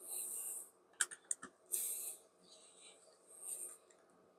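A USB charging cable being handled and plugged in: a quick run of light plastic clicks about a second in, between several short soft hisses.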